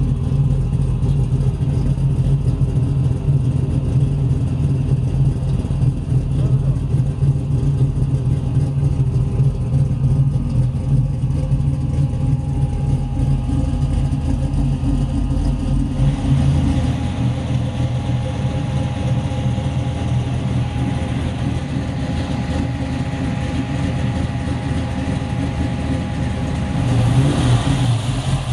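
1968 Camaro SS's 454 big-block Chevrolet V8 idling steadily, heard deep at the tailpipes at first. Its low rumble thins about halfway through, and it grows louder and brighter near the end at the open engine bay and carburetor.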